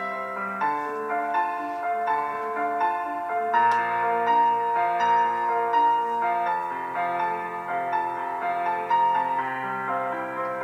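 Instrumental music played back through a Lenovo Z16 laptop's built-in speakers and picked up by a room microphone. It starts abruptly and has almost nothing in the deep bass.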